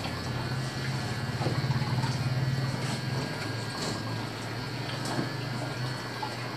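A steady low hum over a light hiss, swelling a little for about a second near the start.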